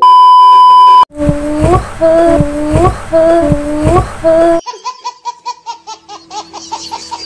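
A steady high beep lasting about a second, then a woman's voice in a run of short drawn-out sounds that each end in a rise, then a baby laughing in quick giggles, about four a second, from a little past the middle.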